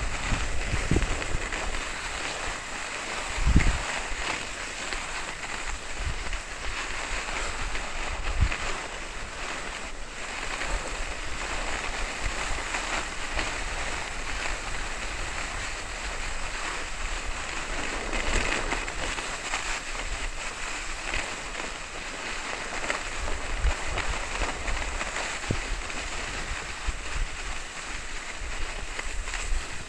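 Skis running fast down groomed, hard-packed snow: a steady scraping hiss of the skis on the snow, with wind buffeting the microphone in low rumbling gusts. A sharp low thump comes about three and a half seconds in.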